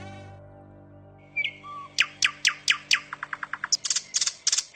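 A mosquito's whine fades out in the first second. Then a kingfisher calls: a run of loud, sharp notes that come faster and faster, running together into a rattle near the end.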